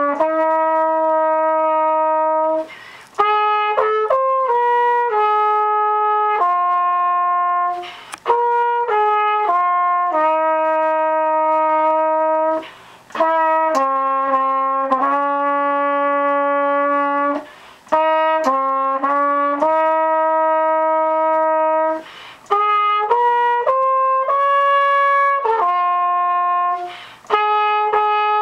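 Solo trumpet playing a slow melody of held notes, in phrases broken by short pauses about every five seconds.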